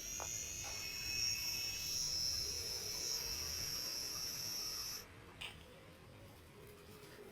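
Small label printer printing a label: its feed motor whines steadily at a high pitch for about five seconds, then stops, followed by a single click.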